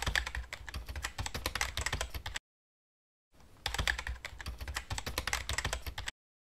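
Rapid keyboard typing clicks accompanying text typed onto the screen, in two runs of about two and a half seconds each with a pause of about a second between.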